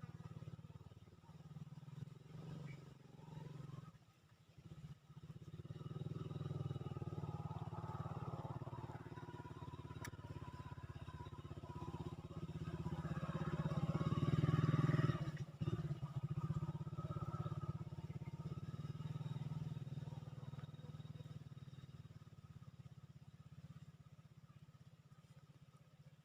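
A motor vehicle's engine passing by: it builds to a peak about midway, then slowly fades.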